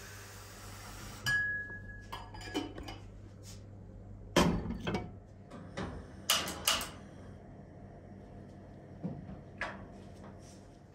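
A tap runs into a kettle and is shut off about a second in; then a string of metal clinks and knocks as the kettle and its lid are handled and set on a gas stove, the loudest knock about four seconds in.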